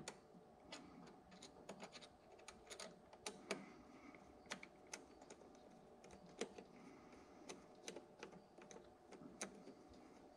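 A screwdriver loosening a small screw on a throttle body and nudging the part it holds, heard as faint, irregular small metal clicks and ticks.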